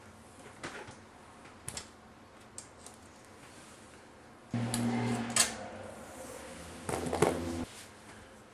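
Thin sheet-metal body pieces of a model car being handled and fitted: a few light clicks, then two louder spells of metal clattering and scraping, one about halfway through and one near the end.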